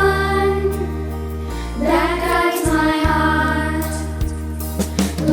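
A devotional song, a hymn sung over steady low instrumental notes. A new sung phrase starts about two seconds in.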